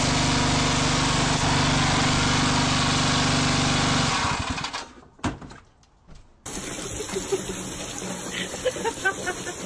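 Gas-engine pressure washer running steadily with the hiss of its high-pressure spray, dying away about four seconds in, followed by a couple of sharp knocks.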